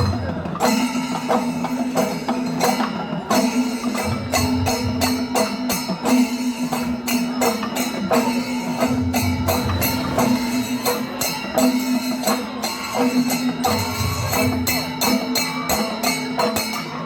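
Traditional Kerala temple percussion ensemble (melam) playing fast: dense metallic hand-cymbal strokes and drum beats over a steady held tone, without a break.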